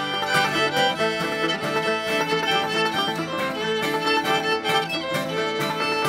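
Bluegrass instrumental played on fiddle, banjo and acoustic guitar, with the bowed fiddle prominent over the plucked banjo and strummed guitar.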